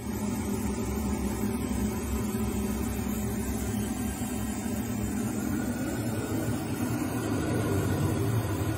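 Steady drone of jet engine and rushing air heard inside an F-16 fighter's cockpit, with a low hum underneath.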